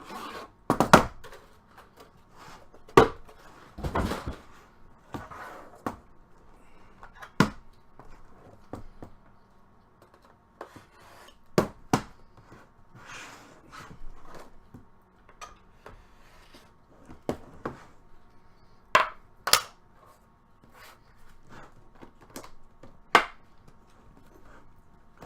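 Hands opening and handling a box of trading cards: scattered sharp clicks and knocks, about a dozen in all and loudest in the first few seconds, with a few soft brushing or sliding sounds between them.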